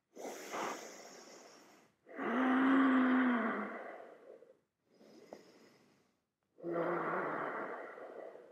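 A person breathing heavily while holding a yoga backbend (camel pose): four audible breaths, two of them long sighing exhales with a low hum of the voice, the first of these the loudest.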